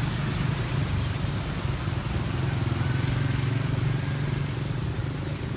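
Small motorcycle engines running close by at a steady pace.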